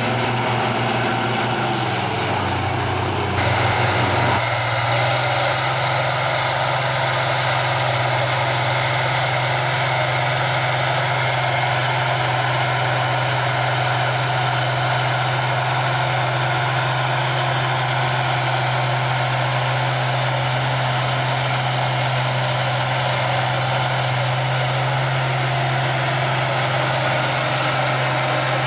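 Diesel engine of a large International Harvester four-wheel-drive tractor running steadily under load while pulling a chisel plow through the soil. The engine note shifts about three to four seconds in, then holds even.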